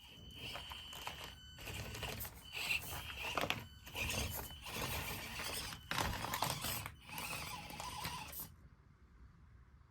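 Axial SCX24 Deadbolt micro RC crawler running: its small electric motor and geartrain whine in throttle bursts with short pauses, and the tires scrape and grind over the track. It stops abruptly near the end.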